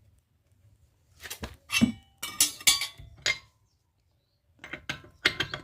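Metal tools clinking and knocking as a wheel spanner and an improvised metal bar are fitted and worked onto a car's wheel nut: two clusters of sharp clinks with a short pause between.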